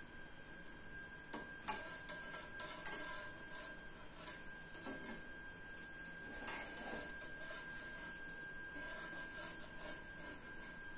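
Faint clinks and knocks of a metal spatula and pan against a ridged grill pan on a stovetop, the sharpest about two seconds in, over a steady faint high-pitched tone.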